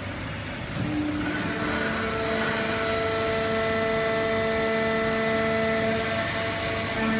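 Automatic horizontal hydraulic baling press running: a steady machine hum with several steady whining tones over it, growing louder about a second in.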